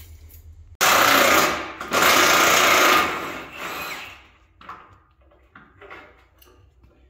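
A handheld cordless power tool is run in two bursts of about a second each on a steel truck frame rail, then winds down over about a second.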